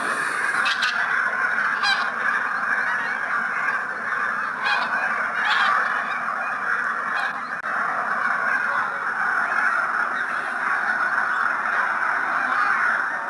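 A large flock of geese calling without a break, a dense chorus of honking, with a few nearer individual calls standing out now and then.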